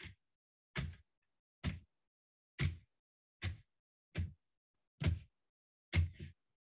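A paint-soaked fabric flogger slapped down onto a painted board, about one slap a second, eight times, the last one doubled.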